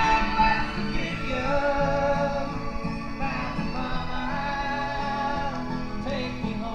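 A song with a singing voice over instrumental backing, played as a record on a portable suitcase-style turntable.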